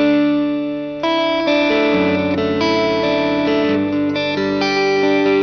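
Electric guitar played through a Valeton GP200R multi-effects processor on a crunch preset, with the guitar's volume turned down for a cleaner tone. Chords are played and left to ring, with a new chord roughly every half second to a second after about a second in.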